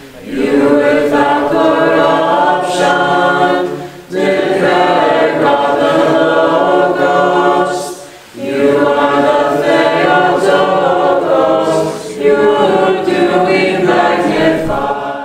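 A congregation singing a hymn together, unaccompanied, in four phrases of about four seconds each with short breaks between them.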